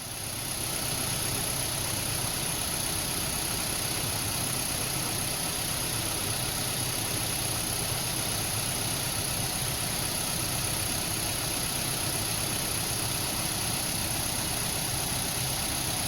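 Mazda CX-7 engine idling steadily in park, settled after its cold-start warm-up, with a steady high-pitched hiss over the engine note.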